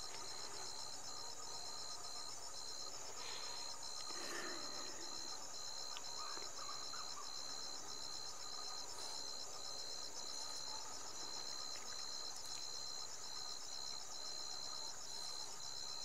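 Insects chirring steadily: a high continuous buzz with an even pulsing trill beneath it, about two pulses a second.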